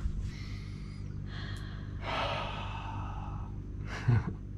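A person's breathy sighs and exhales of contented relief at being home, over a steady low hum. A short laugh comes near the end.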